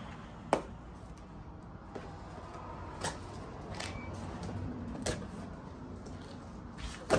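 Cardboard shipping boxes being handled and opened by hand: four sharp knocks of cardboard against cardboard, spread a couple of seconds apart, over a low steady background.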